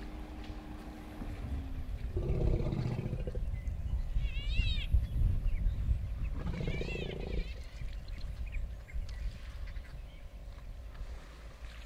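Two low, drawn-out wild animal calls, about two and a half and seven seconds in, over a steady low rumble. Short high chirps, rising and falling like bird calls, come just before five seconds and again with the second call.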